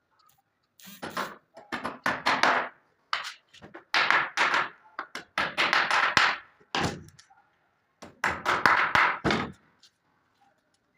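Wood being struck or worked in runs of three or four strokes, about three a second, with short pauses between the runs.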